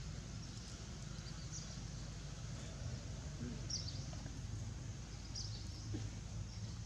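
Outdoor ambience: a steady low rumble with a few short, faint high chirps spaced a second or two apart.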